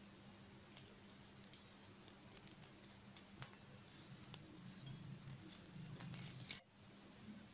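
Faint wet squishing and scattered small clicks from the soft skin being peeled off boiled raw mangoes by hand over a bowl of cooking water. The sounds thicken about five seconds in, then stop suddenly about a second before the end.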